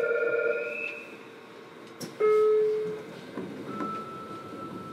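Door-closing warning tones inside a JR Kyushu 303 series train car at a station stop. A steady electronic tone fades out in the first second. About two seconds in, a loud buzzer tone sounds once for under a second just before the doors slide shut.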